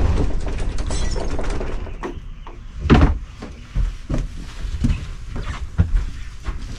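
A crackly rushing noise that fades over the first two seconds, then scattered thuds and knocks of footsteps and handling on a wooden floor, the loudest about three seconds in.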